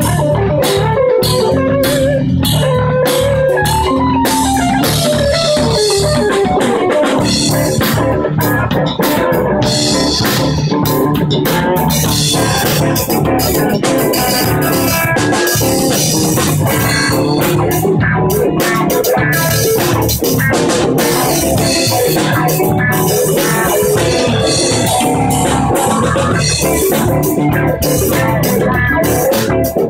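Live band playing a loud, continuous jam, with a lead line sliding up and down in the first few seconds.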